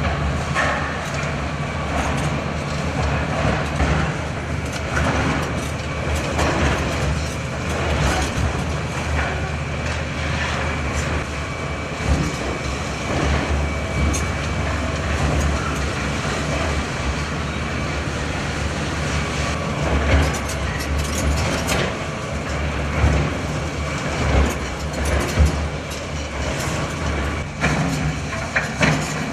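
Heavy construction machine's diesel engine running steadily during a building demolition, with scattered knocks and crunches of debris throughout.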